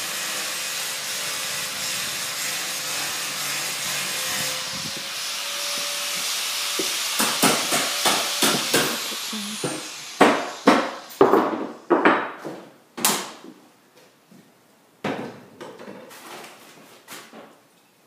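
Construction work in a house: a power tool runs steadily and fades out about halfway through, followed by a series of irregular sharp knocks like hammer blows on wood.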